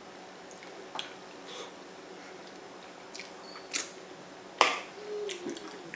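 Close-up eating sounds: a few sharp, wet smacks of lips and fingers being licked clean of sauce, the loudest about four and a half seconds in, followed by a brief low hum.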